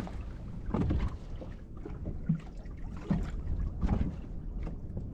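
Steady low wind rumble on the microphone aboard a fishing boat, with a few light knocks and bumps scattered through it.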